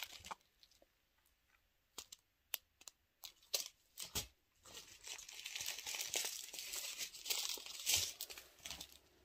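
Small plastic bags of diamond-painting drills crinkling as they are handled: a few scattered light clicks at first, then a few seconds of steady crinkling rustle in the second half.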